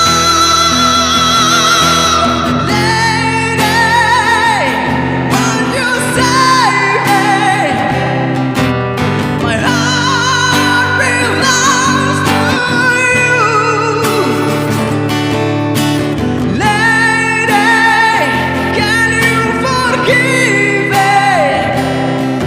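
Music: high singing with strong vibrato and gliding notes over guitar accompaniment, a rock ballad.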